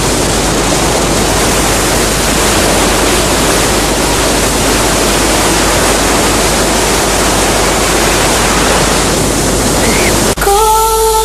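A loud, steady rushing noise, even from low to high pitches, that cuts off abruptly about ten seconds in, where music with singing begins.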